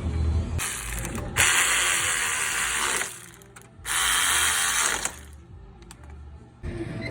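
Three bursts of a mechanical ratcheting, grinding sound from gears or a ratchet mechanism. The longest burst, about a second and a half, falls near the start; the other two are shorter, with quieter gaps between them.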